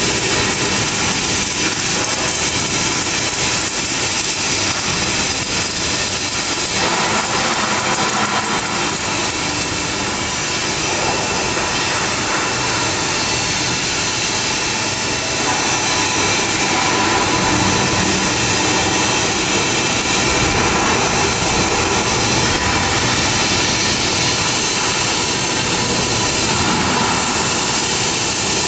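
Automatic seam welding machine at work: a steady, loud mechanical hiss and hum with no breaks, its tone brightening about seven seconds in.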